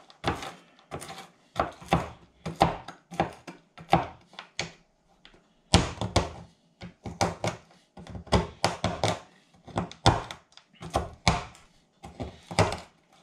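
Knife chopping chocolate and pecan nuts on a chopping board: a run of sharp knocks about two to three a second, with a brief pause about five seconds in.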